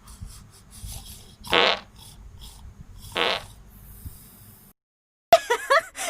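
Two loud, rattling snores a little over a second and a half apart, over a low rumble. The sound then cuts out briefly, and near the end a person's voice starts whimpering or crying.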